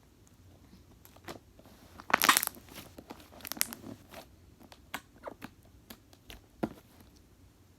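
Slime being squished and pulled in the hands, giving a run of crackling clicks and pops, thickest and loudest about two seconds in, then scattered single pops.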